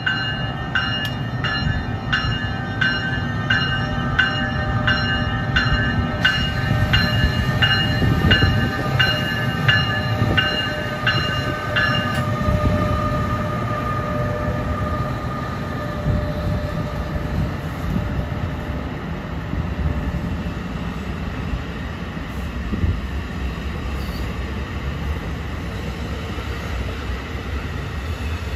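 NJ Transit electric locomotive hauling multilevel coaches, rolling slowly through the station with a steady low rumble. Its bell rings in regular strokes, a little more than one a second, and stops about twelve seconds in; the rumble of wheels and cars carries on.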